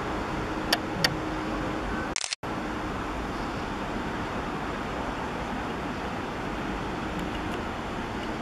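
Steady hum of road traffic, with two sharp clicks about a second in and a moment just after two seconds where the sound cuts out completely.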